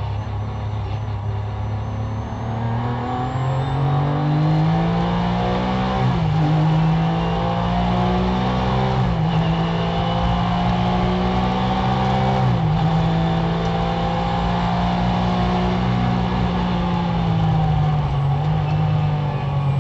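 Porsche GT3 race car's flat-six engine heard from inside the cabin, accelerating hard through the gears. The revs climb, drop sharply at three upshifts about six, nine and twelve seconds in, then fall away as the driver lifts off before rising again near the end.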